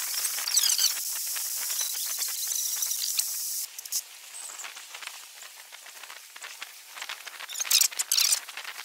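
Outdoor noise: a steady high hiss that cuts off abruptly about three and a half seconds in, then quieter background with a few brief, sharp high chirps near the end.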